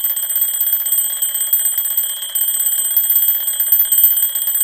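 Electronic alarm going off: a loud, high-pitched tone beeping in a fast, even pulse that does not let up, waking a sleeper.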